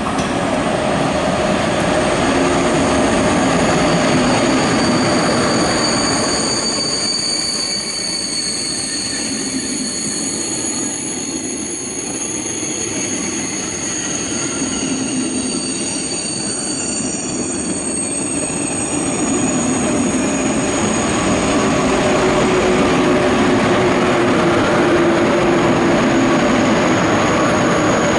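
SNCF double-deck TGV trainset running past close by along the platform track, its steel wheels giving a high, steady squeal over the rolling rumble. The squeal fades about two-thirds of the way through as the rumble of the passing cars grows louder.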